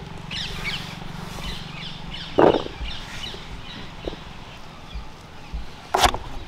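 Birds chirping in the background, with two short thuds. The second, near the end, is a knife chopping through a small aubergine onto a wooden board.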